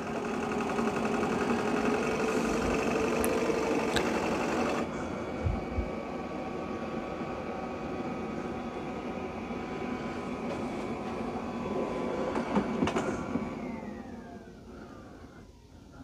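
Shark Matrix robot vacuum's suction motor and brushes running with a steady whine as it manoeuvres back onto its dock. The sound drops a step about five seconds in, then the motor winds down with a falling whine near the end as it parks.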